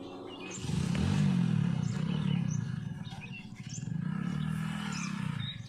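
Cattle mooing: two long, low calls, each rising and falling over about two seconds, with birds chirping faintly behind.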